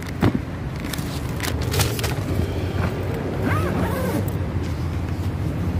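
Steady low rumble of city street traffic, with scattered short clicks and knocks.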